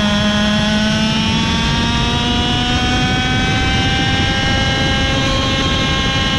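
TM 125 cc two-stroke KZ shifter kart engine at high revs on a straight, its pitch climbing steadily as the kart accelerates, with a small step in pitch about a second in. A steady low rumble of wind and tyres lies under it.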